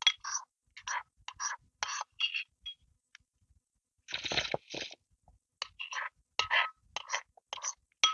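Close-miked eating sounds: a metal spoon scraping and clinking against a ceramic bowl, and soup being slurped off the spoon, in a series of short sounds. The fullest and longest comes about four seconds in.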